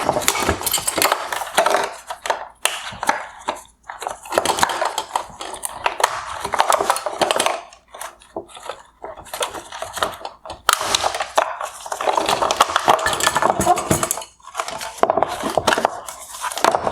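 The internals of a Hyundai Sonata LED headlight, the projector assembly with its brackets and wiring, being pulled out of the plastic headlight housing: steady knocking, rattling and scraping of plastic and metal parts, broken by two short pauses.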